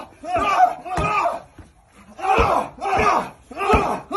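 Punches thudding into a padded body-protector vest, about four heavy blows, with loud shouting and yelling around each hit.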